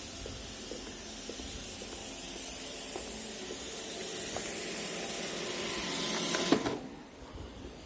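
iRobot Roomba e5 robot vacuum running with a steady hiss that grows slowly louder. Near the end there is a knock, and then the sound cuts off suddenly.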